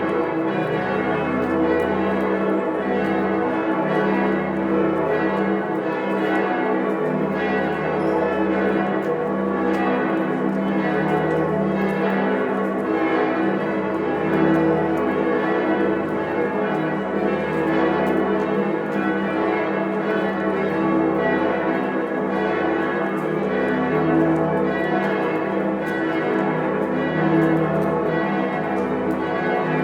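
Several church bells swinging and ringing together in a full peal, their strikes overlapping continuously. Underneath, the deep hum of the largest bell swells about every two seconds.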